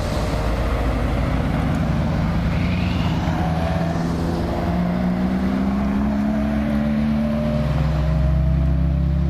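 Exotic cars rolling slowly past one after another, a Bugatti Veyron and then a Ferrari, engines running at low revs. A steady low drone with an engine note that rises gently in the second half.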